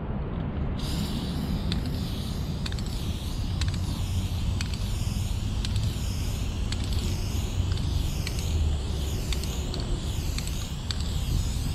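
Aerosol spray paint can hissing steadily, cutting in about a second in, over a low rumble.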